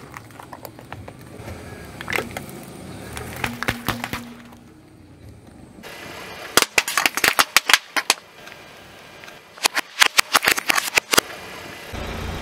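A car tyre rolling over a tray of blue-filled plastic cells and crushing them. There are two quick runs of sharp cracks and pops, one a little after halfway and one near the end.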